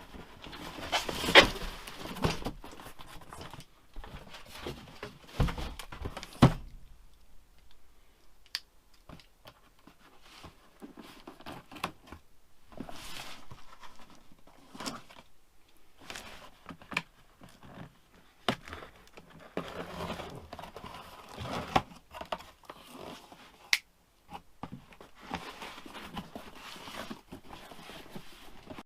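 Parts of a diesel heater kit being handled and unpacked: packaging crinkling and rustling, with scattered knocks and clicks as pieces are picked up and set down, and a few heavier thumps in the first several seconds.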